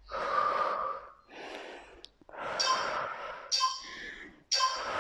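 A woman breathing hard from exertion, with about five loud, hissy breaths roughly a second apart.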